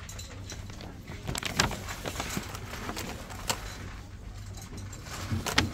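Steady low background hum with a few sharp clicks and knocks scattered through it, the loudest about a second and a half in and near the end.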